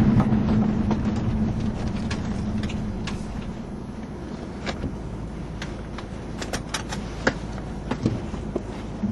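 Vauxhall Monaro's V8 engine heard from inside the cabin while driving downhill, its steady hum loud at first and dying away over the first three or four seconds. It leaves quieter road noise with scattered light clicks and rattles.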